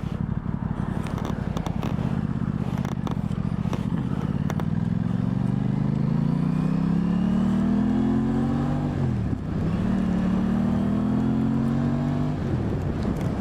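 2023 Aprilia Tuono 660's parallel-twin engine pulling under acceleration, its pitch climbing steadily for several seconds, then dropping and recovering at a gear change about two-thirds of the way in, with another drop near the end.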